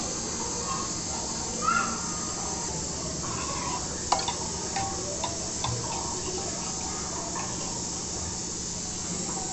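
Thick dal simmering in a pot on the stove, with a steady hiss and a few sharp clicks of a steel ladle against the pot as it is stirred, the loudest about four seconds in.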